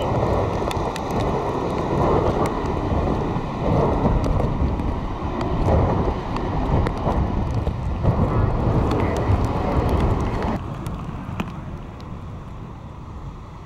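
Strong wind buffeting the microphone in gusts, over the rush of breaking surf; the wind eases about ten and a half seconds in.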